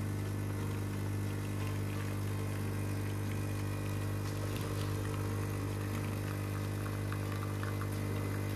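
Rocket Appartamento espresso machine's vibratory pump humming steadily while pulling an espresso shot.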